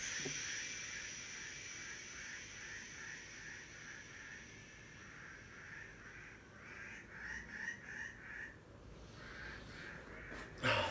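Faint outdoor animal calls: a steady high-pitched drone that fades about two-thirds of the way through, with a chirping pulse about three times a second. Near the end comes a brief rustle of a body shifting on a mat.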